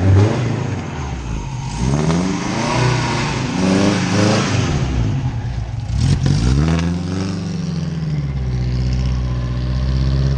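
Car engine revved up and down about four times, then settling into a steady idle for the last couple of seconds.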